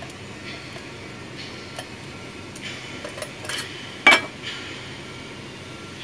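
Light clicks and metallic clinks from the metal-cased differential oil pressure switch being turned over in the hands, with one sharper knock about four seconds in.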